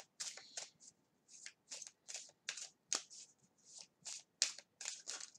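A small oracle card deck being shuffled by hand: a run of quick, crisp card swishes, about three a second.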